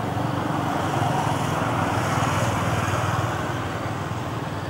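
A motor vehicle's engine passing by. The rumble swells about a second in and fades toward the end.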